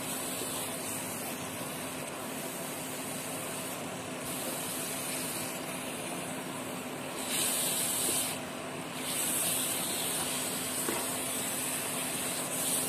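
Wet ground walnut paste frying in desi ghee in a non-stick kadhai, a steady sizzling hiss as it is stirred, a little louder at about seven seconds in and again from about nine seconds. The paste still holds its water, so it sizzles while the moisture cooks off.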